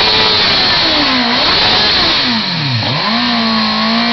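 Sport motorcycle engine revved hard during a burnout, its pitch swinging up and down, dropping sharply and climbing again just before three seconds in, then held high. The clutch is being slipped, and it burns out in the process.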